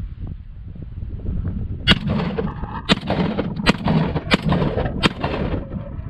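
GForce GF12AR 12-gauge AR-style semi-automatic shotgun firing five shots in quick succession, a second or less apart, the action cycling a fresh shell after each shot.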